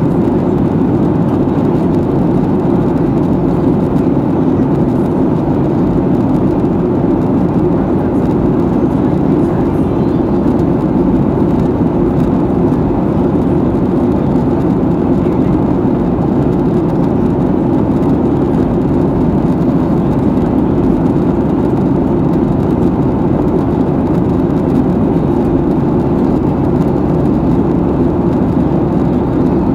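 Steady low drone inside the passenger cabin of a Boeing 737-800 in flight: its CFM56-7B turbofan engines and the airflow over the fuselage.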